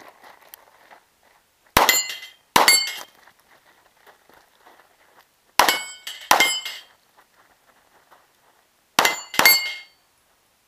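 Six pistol shots in three close pairs, each followed by the short metallic ring of a steel plate on a plate rack being hit.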